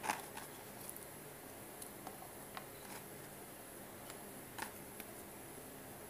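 Faint room tone with a low steady hum and a few light clicks and taps as cucumber slices are laid on a plate of fried tofu.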